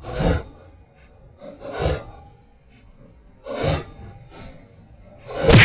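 A person breathing hard close to the microphone: four loud breaths about every two seconds, the last one the loudest.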